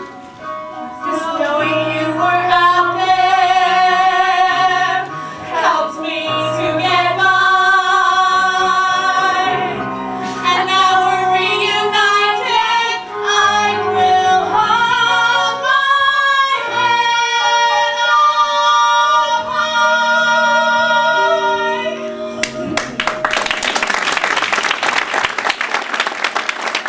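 A solo voice singing a slow song with vibrato over sustained instrumental chords. The song ends about 22 seconds in and gives way to audience applause.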